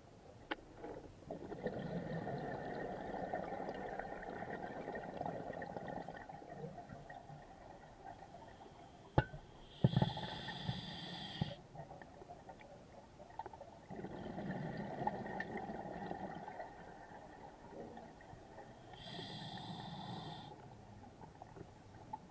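Scuba diver breathing underwater through a regulator: long gurgling rushes of exhaled bubbles alternate with shorter hissing inhalations, about two full breaths. A couple of sharp knocks come just before the first inhalation.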